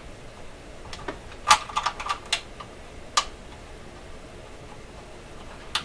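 Irregular light clicks and knocks of hands handling the rear panel and fittings of a vintage DuMont 401A oscilloscope's metal cabinet, bunched between about one and three and a half seconds in, with one more near the end.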